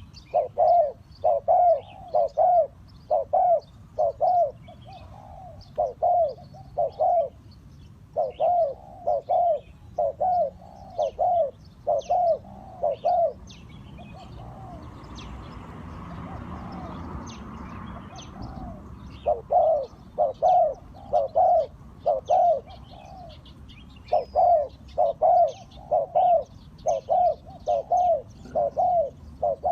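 Spotted dove cooing, its soft notes repeated in runs of several with a pause about halfway through, while a soft rushing noise swells briefly. Small birds chirp faintly in the background.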